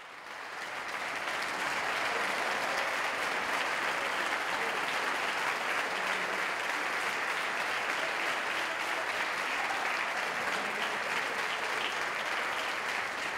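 Concert-hall audience applauding, a dense steady clatter of many hands that swells up over the first second or two and then holds.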